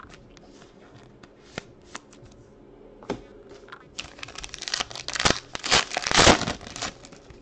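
A few light clicks of trading cards being handled, then about a second in from the halfway point a foil trading-card pack wrapper is torn open with loud crinkling and tearing, loudest near the end.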